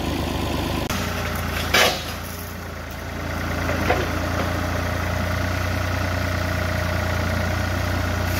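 Farm tractor's engine running steadily as its front loader pushes an overturned SUV, with a single loud clank about two seconds in.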